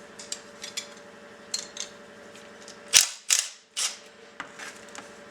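Small metal parts and hand tools clicking and clinking on a workbench, with one sharp loud click about three seconds in and two more soon after.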